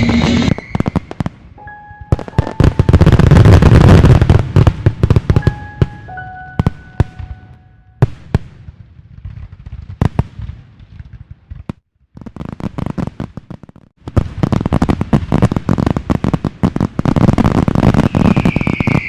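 New Year fireworks going off: dense crackling pops and bangs, loudest for a couple of seconds early on and again from about 14 seconds in, thinning out in between. A few short whistling tones sound among them.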